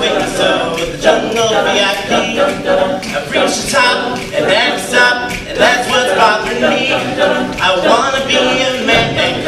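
All-male a cappella group singing a Disney medley, a lead voice at the front microphone over close backing harmonies from the others.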